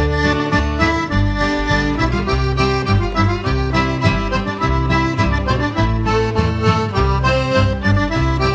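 Newfoundland traditional instrumental jig, led by accordion playing a fast melody over a steady, rhythmic bass line and backing.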